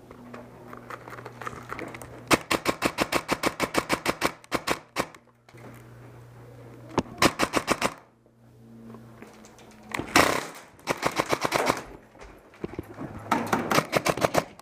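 Airsoft rifle firing several rapid full-auto bursts: a long burst of about two and a half seconds, then shorter bursts around the middle and near the end. A brief loud rush of noise comes just before the third burst.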